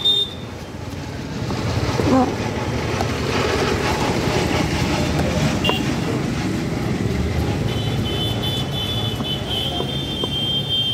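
Steady street traffic noise, with a high-pitched vehicle horn sounding for a few seconds near the end.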